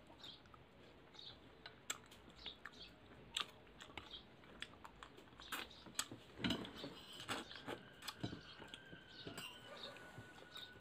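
Eating sounds at a table: scattered light clicks and clinks of spoons and horn-snail shells, with chewing.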